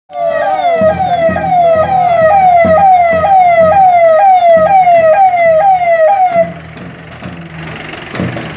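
Electronic vehicle siren sounding in quick repeated falling sweeps, about two a second, over a running vehicle engine. The siren cuts off about six and a half seconds in, leaving the engine and street noise.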